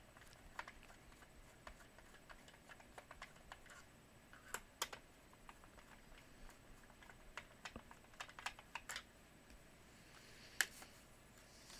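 Faint, irregular small clicks and ticks of a screwdriver working screws out of a Black & Decker DustBuster's plastic housing, with hands handling the plastic shell. A sharper click sounds about ten and a half seconds in.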